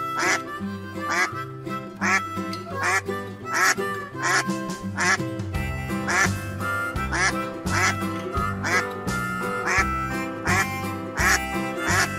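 Duck quacking repeatedly, about two quacks a second, over background music.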